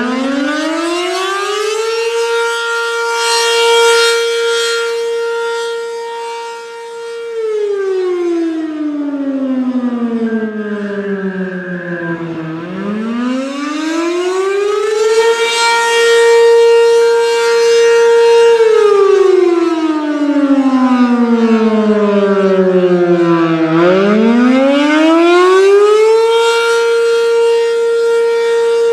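B&N Mobil Directo BN52 outdoor warning siren sounding the wavering attack signal. Its tone climbs over about two seconds, holds steady for four to five seconds, then slides down over about five seconds, repeating in slow cycles of about eleven seconds.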